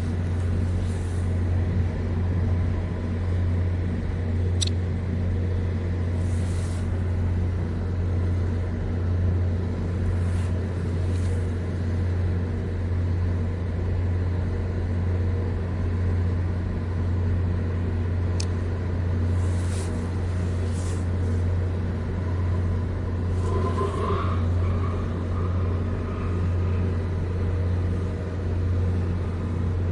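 Steady low engine drone that holds the same pitch and level, with a few faint brief hisses over it.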